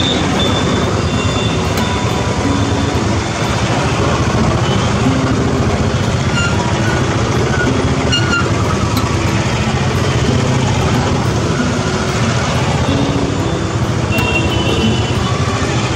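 A convoy of motorcycles riding along with their engines running steadily, mixed with street traffic noise. A few brief high-pitched tones come through near the start and near the end.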